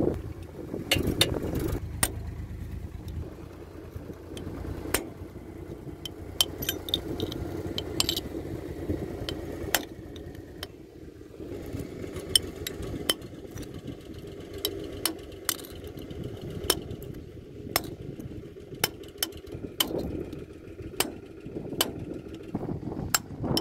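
Metal tool clinking and tapping against a tractor's front wheel spindle and steering knuckle: sharp, irregular metallic clicks, about one or two a second.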